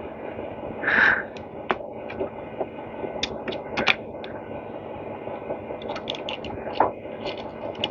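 Scattered light clicks and scrapes of small metal parts being handled as a small-engine electric starter is taken apart, over a steady background hum.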